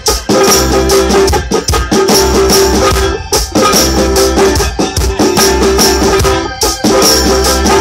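Live rock band playing with electric guitar, bass guitar and drum kit, in a steady beat of repeated chords.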